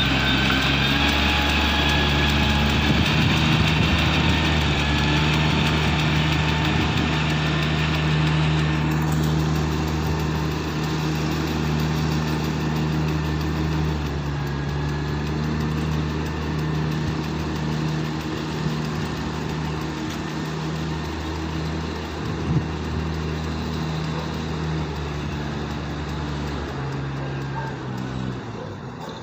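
The small engine of a ride-on rice transplanter running steadily as it plants seedlings in a flooded paddy. It grows fainter as the machine moves away across the field, and there is a single short click a little after the middle.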